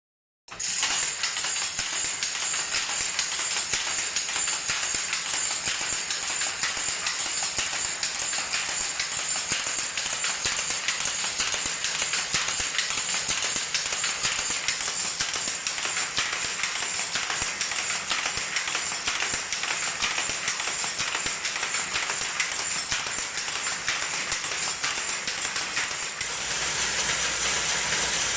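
Pedal-driven Hattersley single-width loom weaving Harris Tweed: a fast, rhythmic mechanical clatter of the shuttle and beating-up motion, starting about half a second in. Near the end the sound changes to a steadier, lower machine noise from a pirn winder.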